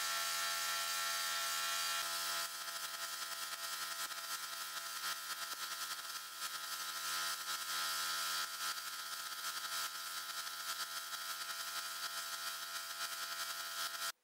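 Gravity-feed paint spray gun hissing steadily as it sprays paint, over a steady mechanical hum.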